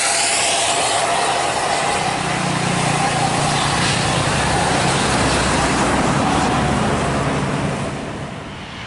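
Diesel engines of tour coaches running past on a hill-road bend, with road noise and a steady engine whine; a low engine hum comes in about two seconds in, and the sound fades near the end.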